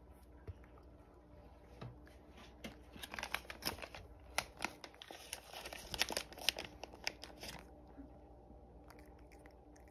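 Crinkly plastic packet of cat treats being handled: a run of sharp crinkling and rustling for about five seconds from a few seconds in, then it stops.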